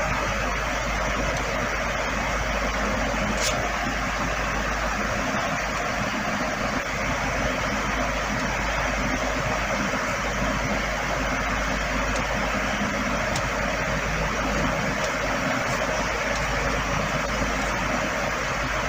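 Steady background noise with a low hum beneath it.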